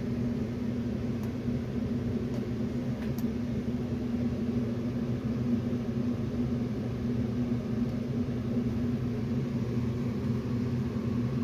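Steady machine hum, a constant low drone from workshop equipment running, with a few faint clicks.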